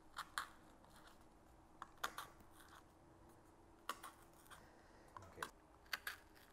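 Awl poking holes through a paper template into cardboard: about ten faint, short pops, irregularly spaced, as the point punches through at each mark.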